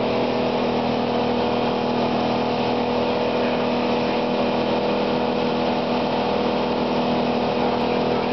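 Yamaha 250 outboard motor running steadily at planing speed, a constant engine drone mixed with the rush of the wake and wind.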